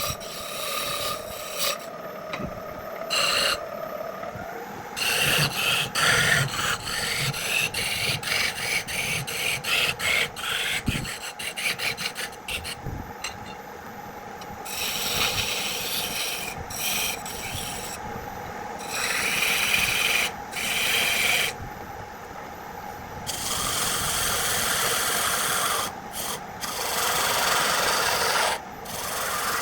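Hand tools rasping and scraping on wood in repeated strokes, the sound changing abruptly several times.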